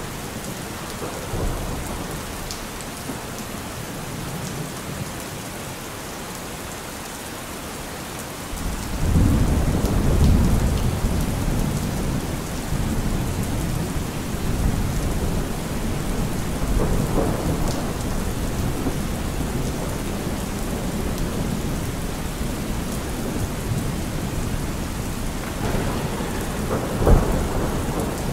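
Steady rain with rolling thunder. A low rumble swells up about a third of the way in, and a sharper thunderclap comes near the end.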